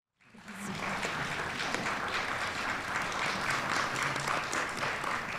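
Audience applauding: many hands clapping in a dense patter that rises quickly from silence at the start.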